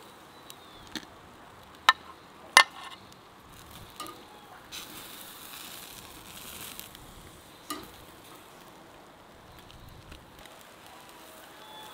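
Metal tongs clicking sharply as grilled bell peppers are lifted off a charcoal grill onto a clay plate, the two loudest clicks about two seconds in. Grilled food sizzles softly on the grill, a little louder in the middle.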